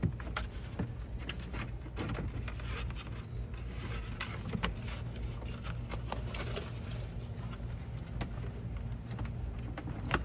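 Scattered light plastic clicks, taps and rustles as a car's dash trim panel and its cable are handled and lined up, over a steady low hum.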